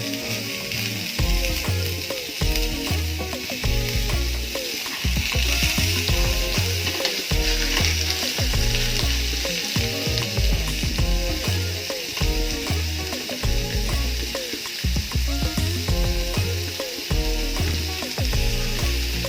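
Pork chops sizzling steadily in hot oil in a frying pan as they sear. Background music with a repeating bass line plays throughout.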